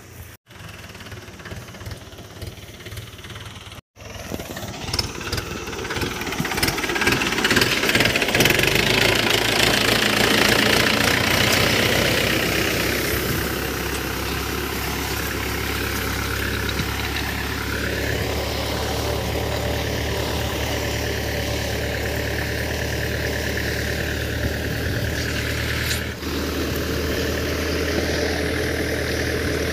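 Mahindra 575 DI tractor's diesel engine running steadily under load while it pulls a scraping implement through dry soil. It is quieter for the first few seconds, with two brief dropouts, then louder, with a rushing noise over the engine between about 7 and 13 seconds.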